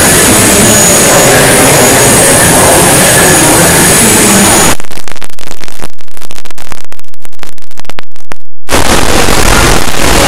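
Very loud, heavily distorted noise with no clear source. About five seconds in it gets louder still and breaks up into harsh clicking for about four seconds, then returns to the dense noise.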